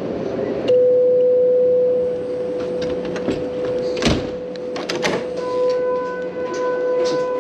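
A steady electric hum or buzz starts abruptly about a second in and holds, with a few sharp knocks or clicks around four to five seconds in; higher tones join the hum a little past five seconds.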